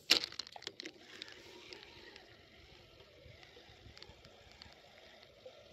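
Spinning reel: a few sharp clicks in the first second, then the steady whir of the reel being cranked as the lure is retrieved.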